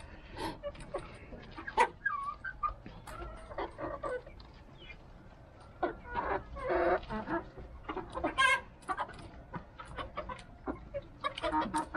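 Rhode Island Red hens clucking and giving short calls as they feed, with many quick ticks and rustles from pecking at greens and gravel.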